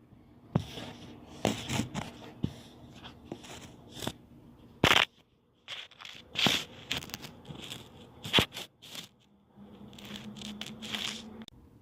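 Irregular rustling, clicks and knocks, like things being handled and moved about, with a faint steady hum starting near the end.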